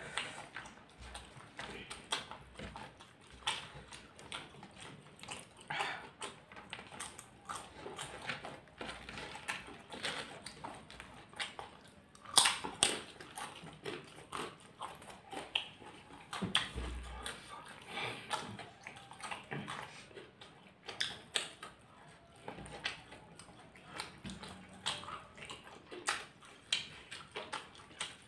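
Close-up eating sounds: chewing and lip smacks from two people eating rice by hand, heard as irregular soft clicks and smacks, a few of them louder.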